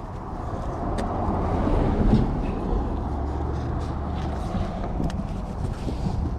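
A road vehicle passing: a broad rumble with a low hum that swells to its loudest about two seconds in, then holds at a steady, lower level.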